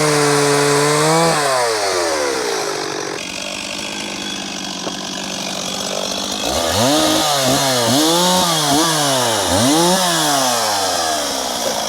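Two-stroke chainsaw cutting firewood logs of damp oak: held at high revs, then let off so the revs fall away. A few seconds later it is revved up and down quickly about five times, and it drops back near the end.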